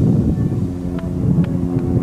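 Titan Tornado light aircraft's engine and propeller droning steadily as it moves along the runway, mixed with wind rumble on the microphone.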